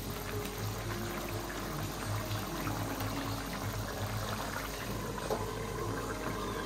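Thick egg curry gravy bubbling at a simmer in a steel karahi, with a steel ladle stirring and scooping in it. A steel lid is set on the pan near the end.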